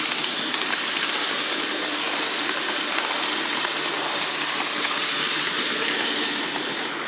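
Bachmann 'The General' HO-scale 4-4-0 model locomotive running around the track at high speed: a steady whir from its three-pole motor and drivetrain, with the wheels running on the rails.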